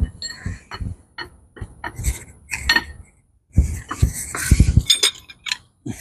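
Irregular metal-on-metal clinks and clanks of hand tools, a socket and wrench being fitted to and worked on the ATV's front axle castle nut to break it free, with a denser run of clattering about halfway through.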